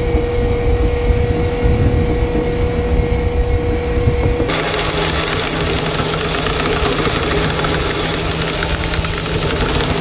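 Fishing boat's engine and rope-hauling capstan winch running with a steady low hum and a steady whine. About four and a half seconds in the whine stops and a louder rushing hiss takes over.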